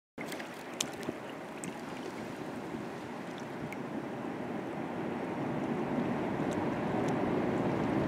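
Choppy river water lapping and washing against the rocks of the bank, a steady wash that grows slowly louder, with a few small splashes near the start.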